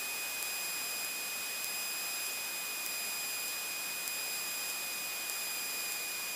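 Steady hiss with a constant high-pitched whine on the aircraft's headset intercom audio between radio calls; the engine itself is barely heard through it.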